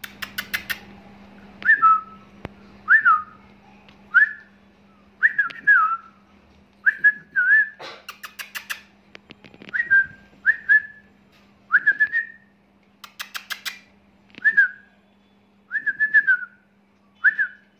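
A person whistling to a puppy in short repeated notes, about one a second, each note bending up and then falling. Bursts of rapid clicking come three times: at the start, about halfway through and again a few seconds later.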